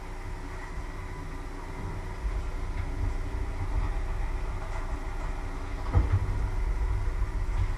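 Electric kettle heating water: a steady low rumble that builds from about two seconds in. A single knock of crockery comes about six seconds in.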